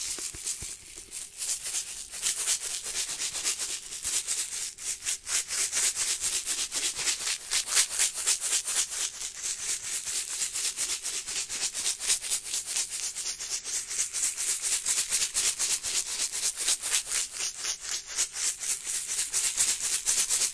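Small loose candies rattling inside a plastic candy container, shaken close to the microphone in a quick, steady rhythm of several shakes a second.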